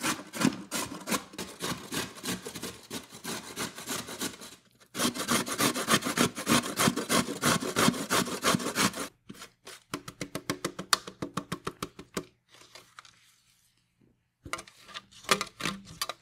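Carrot being grated on a stainless steel box grater: quick, rhythmic rasping strokes, with a short break about four seconds in and a longer lull before a last few strokes near the end.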